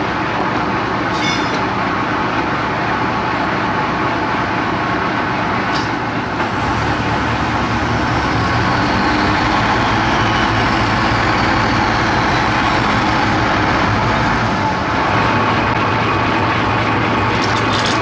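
Heavy self-loader truck's diesel engine running steadily, getting a little louder about six seconds in.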